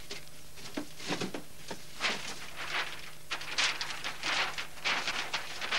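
A large paper map being unfolded and spread out on a desk: irregular crackling and rustling of stiff paper, heavier from about two seconds in.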